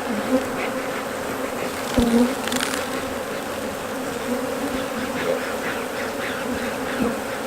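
A colony of honeybees buzzing steadily from the open hive, a dense hum. About two seconds in there is a single sharp knock.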